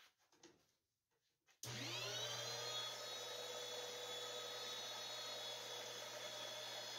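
Porter-Cable band saw switched on about a second and a half in: its motor hums and whines up to speed within a moment, then runs steadily.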